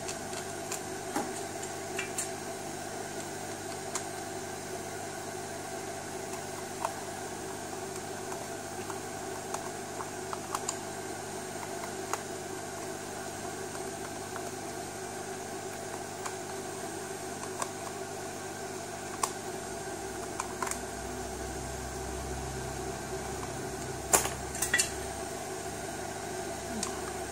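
Light clicks and taps of a small plastic electronics case being handled and fitted together, scattered singly, with a few sharper snaps close together near the end, over a steady mechanical hum.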